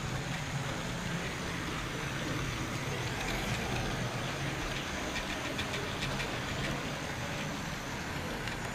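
Electric model trains running on the layout, heard from a camera riding on one of the wagons: a steady rumble of wheels on the track with a low motor hum, and a few light clicks near the middle.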